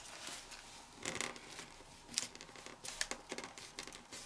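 A folded sheet of printer paper rustling and crinkling under the fingers as a flap is pinched along a crease and folded flat, in short irregular rustles, a few louder ones about a second apart.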